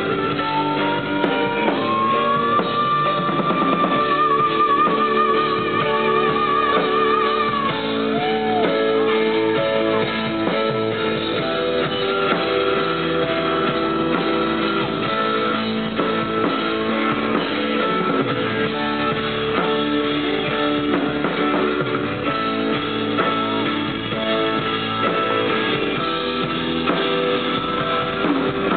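A live rock band playing: electric guitars, bass guitar and drum kit. About a second in, a high note slides up and is held with vibrato for several seconds.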